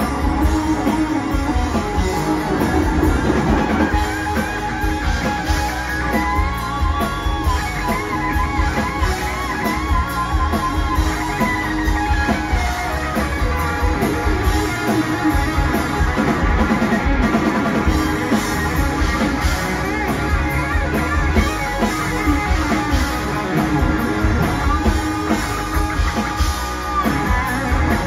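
Live rock band playing an instrumental section: electric guitar lead with bending, wavering notes over bass, drum kit and Hammond organ.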